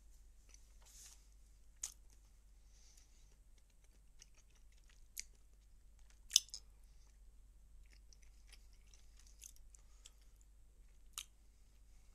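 Quiet chewing of food close to a phone microphone, with a few sharp clicks, the loudest about six seconds in.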